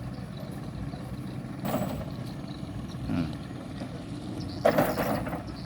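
A steady low engine hum, with short louder noises about two seconds in and near the end.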